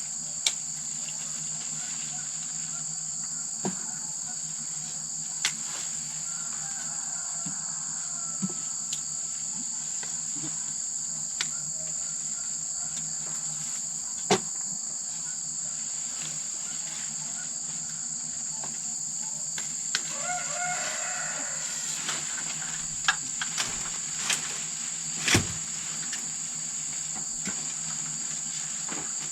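Steady, high-pitched insect chorus of crickets running throughout, with scattered sharp clicks and knocks close by and a brief wavering call about twenty seconds in.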